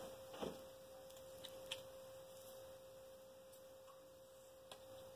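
Near silence with a faint steady tone, broken by a few light clicks and taps of the pressure washer's metal spray lance being handled.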